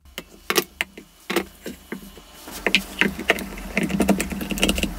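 A wooden block being knocked into place on a workshop jig and clamped down with one-handed bar clamps: a run of sharp wooden knocks and ratcheting clicks that gets busier and louder from about halfway, over a steady low hum.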